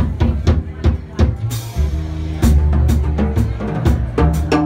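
Live jazz on upright double bass and drum kit. The bass plays a line of held low notes while the drums add repeated snare, bass drum and cymbal strokes.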